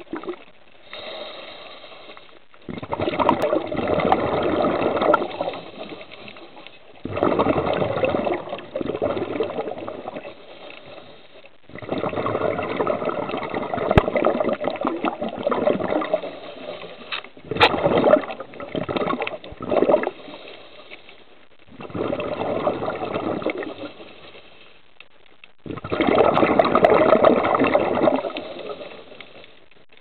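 Underwater water noise picked up by a submerged camera. It comes in surges of a few seconds each, about seven times, with quieter stretches between them and a few faint sharp clicks.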